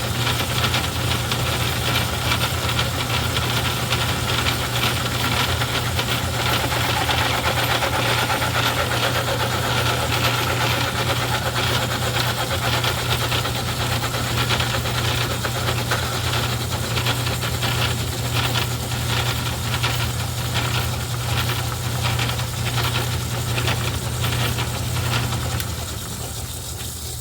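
Craftsman 109 metal lathe running steadily under power while turning a centering cone: a low motor hum with cutting and gear noise over it. It dies away near the end as the lathe is stopped.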